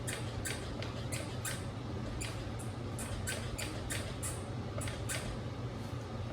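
Dualtron Mini electric scooter squeaking: a run of short, high squeaks, about two to three a second and unevenly spaced. The squeak comes from dry moving parts that the owner sets out to cure with WD-40.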